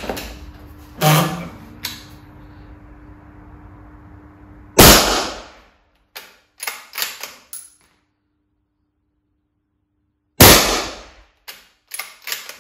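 Two shots from a suppressed Benelli Lupo bolt-action rifle in 6.5 Creedmoor, about five and a half seconds apart. Each shot is followed a second or so later by a quick run of short metallic clicks as the bolt is worked to chamber the next round.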